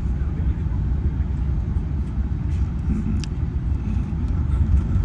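Steady low rumble inside an Airbus A380's cabin as the airliner taxis, from its engines at taxi power and the rolling airframe. A brief sharp click sounds about three seconds in.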